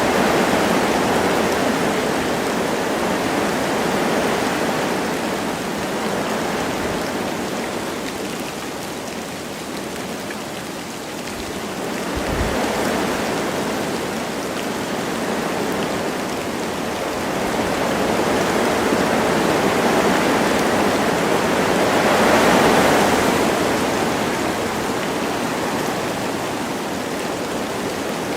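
Wind blowing through forest trees with light rain, a steady rushing that swells and eases in slow gusts, the strongest about three-quarters of the way through. A brief low thump about halfway through.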